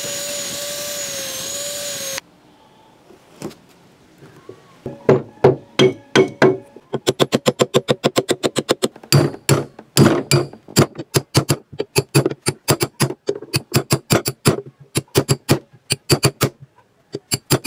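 An angle grinder runs with a steady whine for about two seconds, grinding a rubber seal ring, then cuts off. After a short pause comes a long run of quick, sharp knocks, about four a second with brief breaks, as the rubber seal is driven onto the shaft and into the steel pipe.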